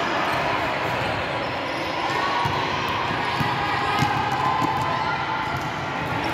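Basketball game in a large sports hall: a basketball bouncing on the wooden court a few times over a steady din of players' and spectators' voices.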